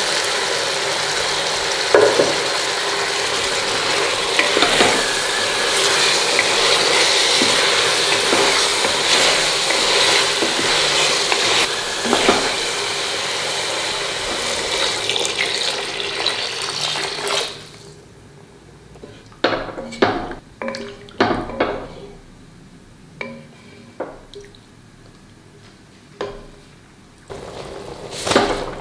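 Chicken and masala sizzling in a hot pot, a loud steady hiss that drops away about seventeen seconds in. Then a spatula stirs the pot with scattered scrapes and knocks against the metal, and near the end water is poured in from a steel bowl.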